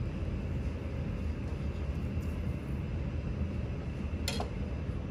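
Steady low mechanical rumble of room machinery, with one light sharp click about four seconds in.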